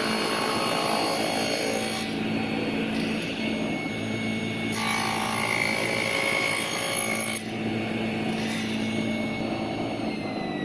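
Power saw running and cutting through wood, with a steady hum and whine. The sound changes abruptly several times, as short clips are joined one after another.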